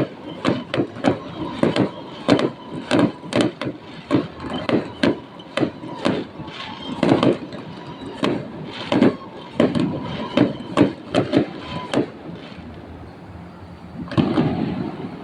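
Fireworks going off in a rapid, irregular series of bangs, two or three a second, that stop about twelve seconds in, followed by one last burst near the end.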